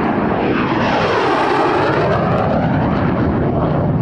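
MiG-17 jet fighter making a loud pass, its jet engine a steady rush with a sweeping tone that falls and then rises again as it goes by.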